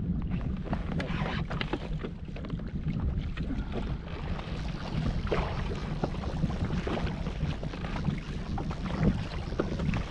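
Wind rumbling on the microphone and choppy lake water lapping against a pontoon boat, with scattered small knocks and splashes.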